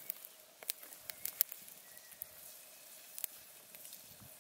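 Wood campfire crackling: a scatter of sharp pops and snaps, most of them in the first second and a half and another about three seconds in.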